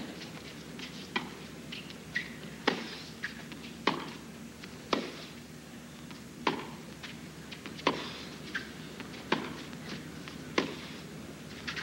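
Tennis ball struck by rackets in a baseline rally on a hard court: sharp pops about every second and a half, with fainter ticks of the ball bouncing between them.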